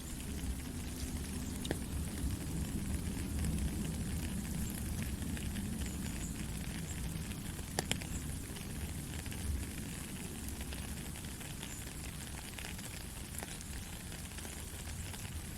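Steady rain falling, an even hiss with a low rumble underneath and a few sharp drop ticks; the loudest is a quick double tick about halfway through.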